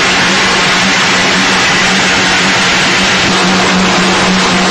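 Puffed corn snack extrusion line running: loud, steady machinery noise with a constant low hum.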